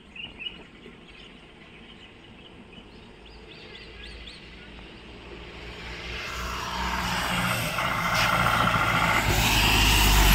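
A Force Traveller van ambulance approaching along a wet road, its engine and tyre hiss growing steadily louder until it is close by the end. A steady tone sounds for about a second and a half shortly before the end.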